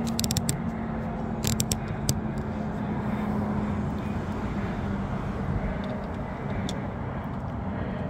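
Steady outdoor background rumble with a low hum that fades about halfway, and a few light handling clicks and knocks, most of them in the first two seconds.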